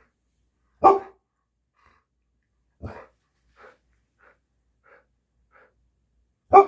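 Alaskan malamute vocalising in short separate bursts: loud ones about a second in and near the end, a medium one around three seconds in, and softer short sounds between.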